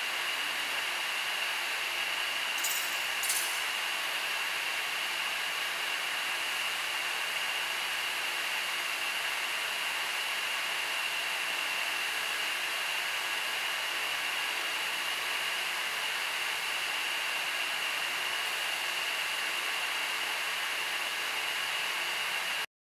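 Butt fusion welding machine running steadily during the cooling stage: an even hiss with a constant high whine, two faint high ticks about three seconds in. The sound stops abruptly just before the end.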